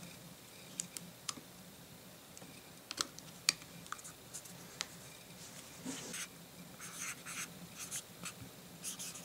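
Faint, scattered clicks and taps as an iPod's 1.8-inch hard drive is handled and lifted out of its open case. From about six seconds in comes a run of short scratching strokes: a marker pen writing on the drive's metal cover.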